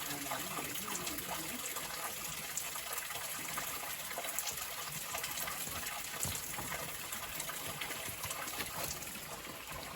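Water of a small stream rushing and splashing steadily over rocks.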